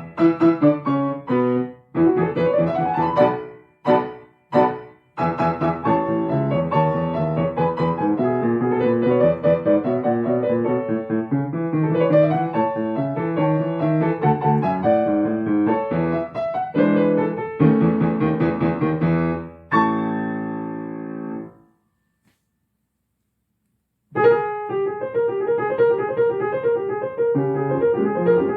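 Solo piano playing fast passages with quick runs. A held chord dies away about twenty seconds in, then after a couple of seconds of silence the playing starts again with a repeated figure.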